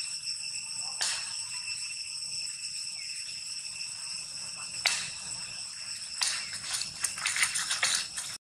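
Steady, high-pitched drone of insects, several tones held at once, with short sharp crackles and rustles of dry leaf litter as the monkeys move, thickening into a quick run of crackles near the end.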